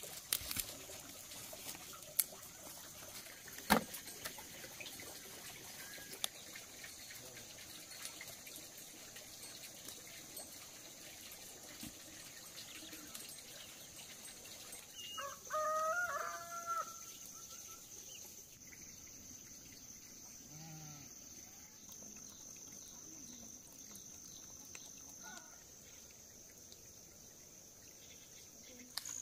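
A rooster crows once, about halfway through, in a call of roughly two seconds. A steady high-pitched whine runs underneath, and a few sharp clicks come in the first four seconds.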